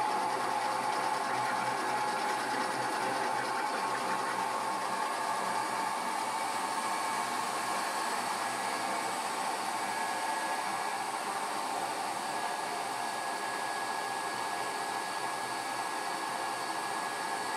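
BEcom BE-PM-60 60-quart planetary mixer running steadily at its third, highest speed, its bowl empty: an even motor and gear whir with a constant hum.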